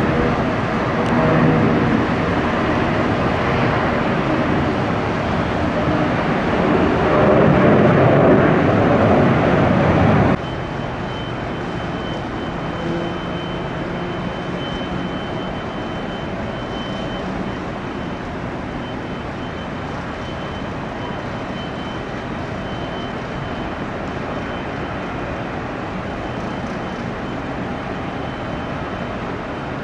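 Jet airliner engines running loudly, swelling toward about ten seconds in, then cut off abruptly and replaced by a quieter, steady engine noise with a thin high whine over it.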